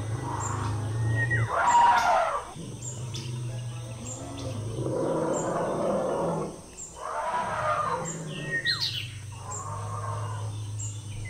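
Birds chirping and tweeting in short rising and falling calls over a steady low hum, with several breathy rushes about a second long.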